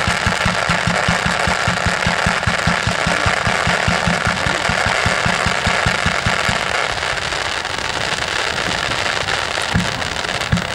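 Star mine fireworks launching in rapid succession: a fast, even run of low thumps, about six a second, over a steady hiss. The run dies away about seven seconds in, and a few single booms follow near the end.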